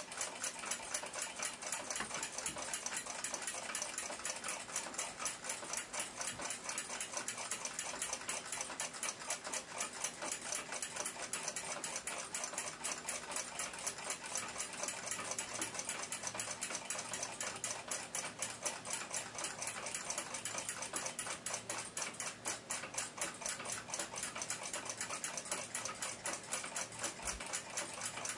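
Rapid, even mechanical ticking, several ticks a second, holding steady throughout.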